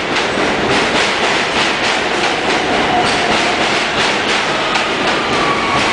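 R160B subway train with Siemens propulsion running past along the platform: a steady rumble of wheels on rail with regular clacking over the rail joints. A faint motor whine shifts in pitch and slides downward near the end.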